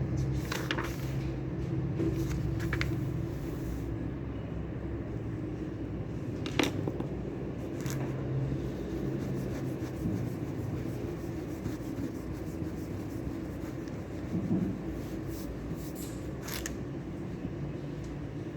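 Steady low hum of room ambience, with a few short sharp clicks and light rustles scattered through it, the loudest about a third of the way in.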